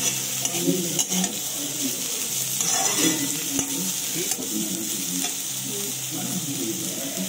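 Shredded cabbage, carrot and capsicum stir-frying in a steel wok: a steady sizzle of hot oil, with the steel spatula scraping and clicking against the pan as the vegetables are tossed.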